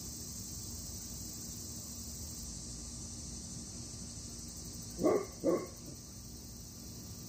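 A dog barks twice in quick succession about five seconds in, over a steady high background of crickets.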